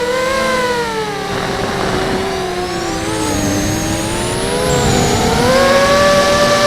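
QAV250 quadcopter's brushless motors and propellers whining as the throttle changes. The pitch falls over the first few seconds, is lowest about three and a half seconds in, then climbs again and holds steady near the end.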